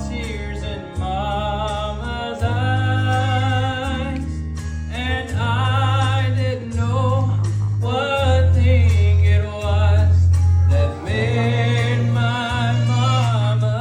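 Gospel song: a solo voice singing with vibrato in phrases of a few seconds, over an instrumental accompaniment with held bass notes.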